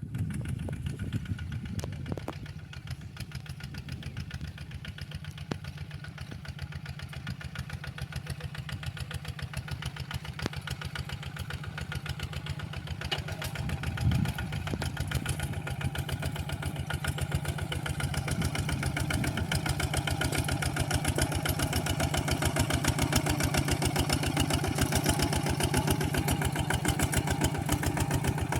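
Walking tractor's engine running steadily with a rapid, even chugging that grows gradually louder.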